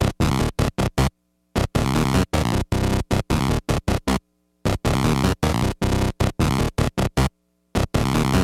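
Electronic music chopped into rapid stuttering pulses, cutting to dead silence for about half a second three times.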